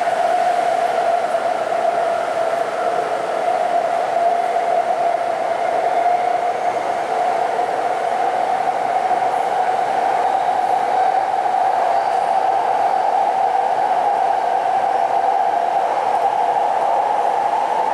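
Taipei Metro C381 train heard from inside the car while it runs through the tunnel. There is a steady loud rumble and hiss, with a whine that creeps slightly higher in pitch toward the end.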